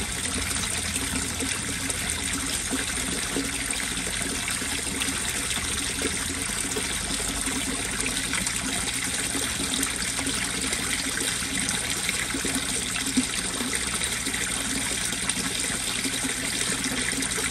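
Running water trickling and splashing steadily into a garden koi pond.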